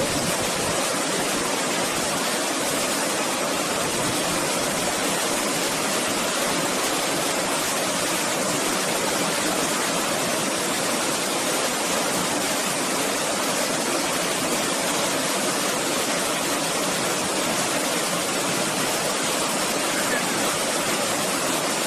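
A small waterfall cascading over rocks into a pool: a steady, even rush of water.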